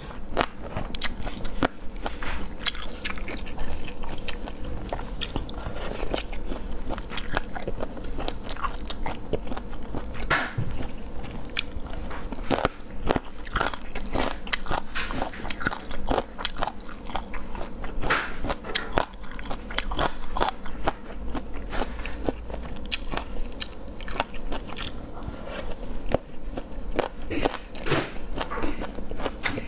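Close-miked chewing and biting of a spicy chicken-feet dish, with many small irregular crunches and clicks throughout.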